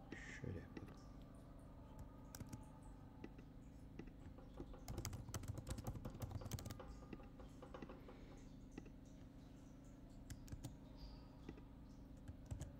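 Faint computer keyboard typing: a quick run of keystrokes around the middle, with a few scattered clicks before and after, over a low steady hum.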